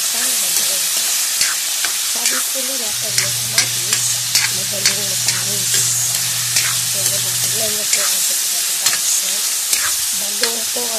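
Chopped tomatoes, peppers and garlic sizzling in hot oil in a wok, while a spatula stirs them, scraping and tapping against the metal in irregular strokes about twice a second.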